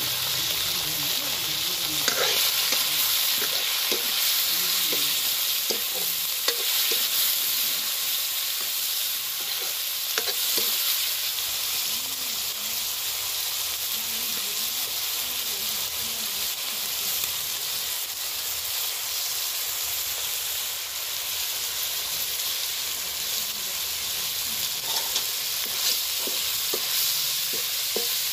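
Eel pieces frying in hot oil in a metal wok, with a steady sizzle. Now and then a metal spoon clicks and scrapes against the pan as it stirs, most often near the end.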